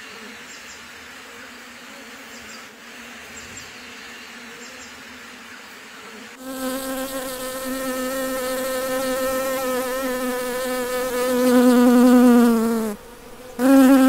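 Faint steady hum of honeybees around a clay-pot hive. About six seconds in, a much louder, even bee-buzz sound effect takes over. It swells, sags a little in pitch and cuts off near the end, then starts again briefly.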